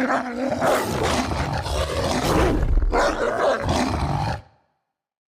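Werewolf sound effect: rough, noisy, beast-like vocalising in a series of uneven bursts, cutting off suddenly about four and a half seconds in.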